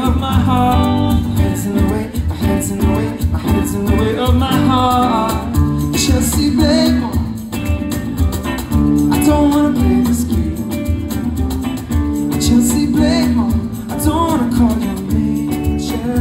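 Live band playing a song: electric guitars, bass guitar and drums, with a voice singing over them at times.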